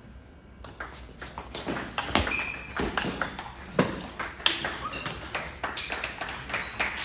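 Table tennis rally: the plastic ball clicking sharply off the paddles and the table in quick, irregular succession, starting about a second in.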